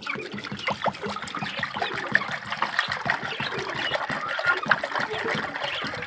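Water pouring steadily from a plastic jerrycan into a shallow clay bowl, trickling and splashing into the water already in it.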